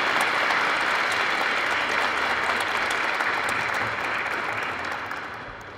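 Congregation applauding steadily, the applause dying away near the end.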